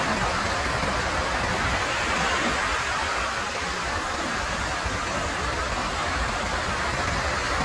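Ocean surf breaking and washing up on a sandy beach: a steady rushing noise with a low rumble underneath.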